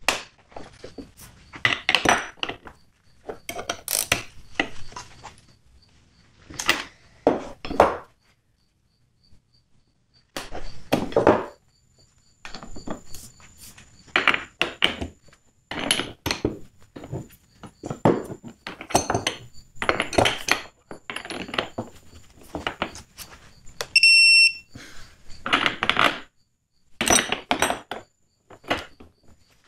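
Irregular metal clanks and clicks of sockets and a long breaker bar being fitted to and pulled against large bolts in a steel test plate. About 24 s in comes a short run of high electronic beeps from the digital torque meter.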